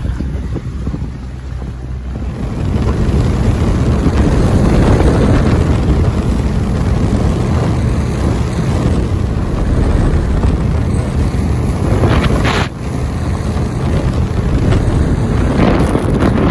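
Heavy wind buffeting the microphone over the running noise of a 25-foot Dorado bay boat under way, powered by a Mercury 400 outboard. The rumble grows louder a couple of seconds in and holds steady, with one brief dip near the end.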